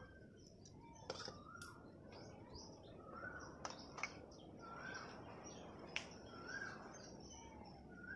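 A bird calling faintly over and over, a short rising-and-falling call every second or two, with a few light metallic clicks of a steel spoon against a pot.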